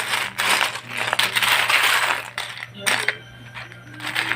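Loose plastic Lego pieces clattering and rattling against each other as they are handled and sifted, a dense clatter for the first two seconds or so, then a few separate clicks.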